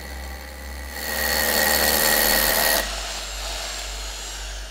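SDS rotary hammer drill with a dust extraction attachment drilling into a concrete block. The drill is loud from about a second in and stops just before three seconds, its whine then falling as the motor spins down.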